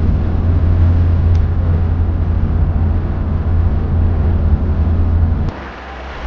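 Steady low rumble of a car's engine and tyres heard from inside the cabin while driving on a highway. It cuts off suddenly near the end, giving way to quieter open-air noise.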